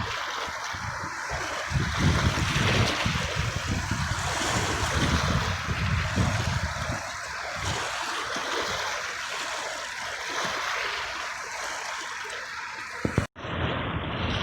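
Sea waves washing on the shore, a steady rushing surf. About 13 seconds in the sound cuts out for an instant and then comes back duller.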